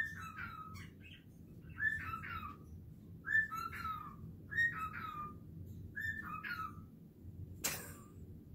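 A pet's repeated whistle-like calls, about six short falling notes roughly one every 1.3 seconds, insistent calling from a pet that has just been fed. A single sharp click near the end.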